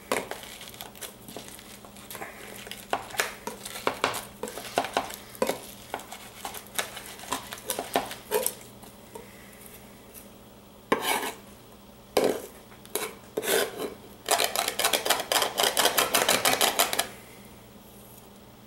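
Chef's knife on a bamboo cutting board: the flat of the blade pressing and scraping garlic and kosher salt into a paste, with irregular knocks and scrapes. Near the end comes a rapid, even run of chopping strokes for about three seconds.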